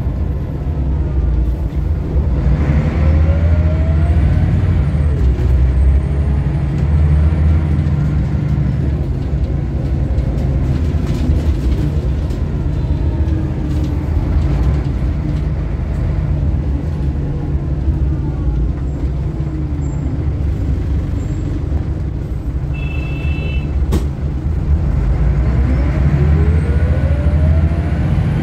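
Interior sound of a 2005 Scania L94UB bus on the move: a steady low rumble from its rear-mounted diesel engine, with a whine that rises in pitch as it accelerates shortly after the start and again near the end, and falls as it slows in between. A short electronic beep sounds about three-quarters of the way through, followed by a click.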